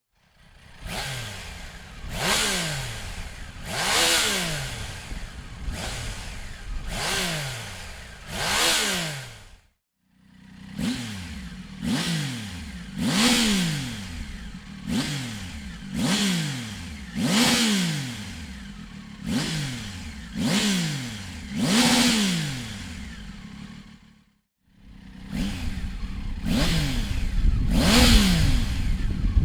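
Triumph Tiger 800 inline three-cylinder engine revved repeatedly through an aftermarket Dominator exhaust silencer: sharp throttle blips every second or two, each rising quickly and falling back toward idle. The sound cuts out briefly twice, about ten and about twenty-four seconds in, between takes of different silencers; the last take has a heavier low end.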